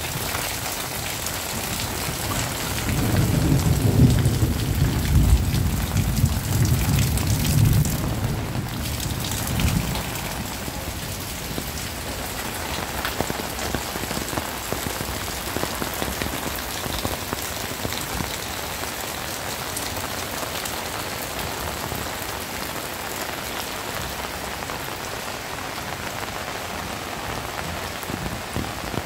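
Heavy rain falling steadily with a constant hiss. A long, low roll of thunder swells in about three seconds in and fades out by about ten seconds in.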